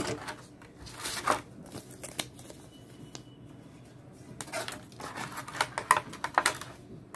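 A clear plastic packaging pouch crinkling and a paper instruction leaflet rustling as they are handled by hand, in short spells of crackles about a second in and again around five to six seconds in.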